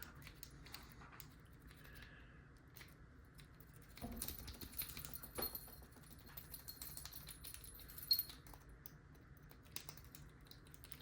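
Faint, irregular metallic clicking and scratching of a tickler-style lock pick working inside a small, inexpensive padlock's keyway, busiest about four to six seconds in and again around eight seconds. The lock does not open.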